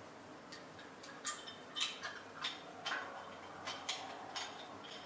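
A dozen or so light, irregular metallic clicks and taps as a new plunger tube is fitted and twisted into the brass body of a high-pressure CO2 solenoid valve by hand.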